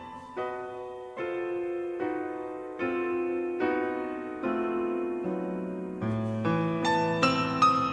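Background piano music: slow sustained chords that grow fuller, with a deeper bass and quicker high notes, from about six seconds in.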